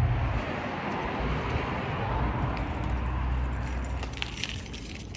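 Car noise: a steady low engine rumble cuts off about half a second in, leaving an even hiss that slowly fades, with a few light clicks near the end.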